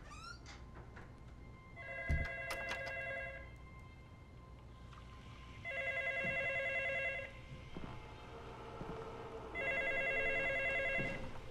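A telephone ringing three times. Each ring lasts about a second and a half, and the rings come about four seconds apart.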